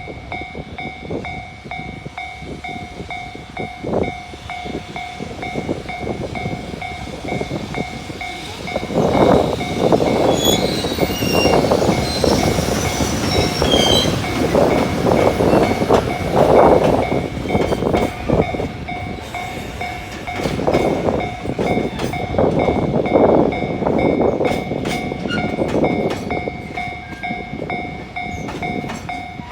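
Japanese level-crossing alarm ringing with a steady repeating electronic ding while a freight train hauled by an EH500 'Kintaro' electric locomotive passes over the crossing. The train's rumble and the clickety-clack of its wheels are loudest from about nine seconds in until near the end, with a few brief high squeals early in the pass.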